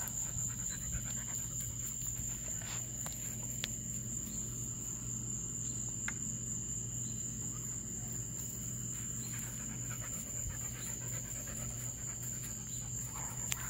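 Crickets chirring in a steady, high-pitched drone, with a low steady hum underneath and a few faint clicks.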